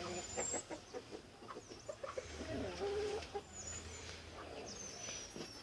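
Outdoor animal calls: short low warbling calls, with thin high bird chirps and whistles above them.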